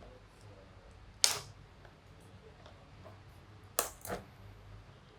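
Packaging being handled as a product box is opened: a loud sharp click with a brief scrape just past a second in, then two quieter clicks close together near the four-second mark.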